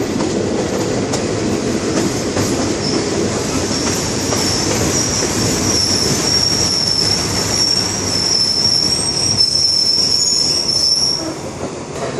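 Passenger train rolling along the rails, heard from an open carriage window, with a high, steady wheel squeal from about four seconds in that fades near the end as the train slows to a stop at the platform.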